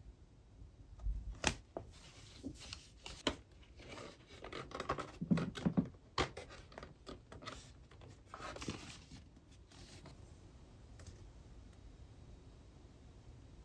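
Wooden picture frames and fabric being handled: irregular light knocks, clicks and rustling, busiest in the first half, then quieter.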